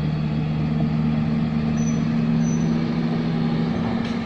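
Heavy diesel engine of quarry earthmoving machinery running steadily at a constant pitch, with a brief knock near the end.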